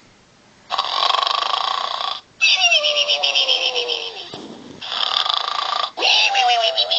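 Pig snoring: about four snores, each a second or two long with short pauses between them, each with a fast flutter and a pitch that falls as it goes.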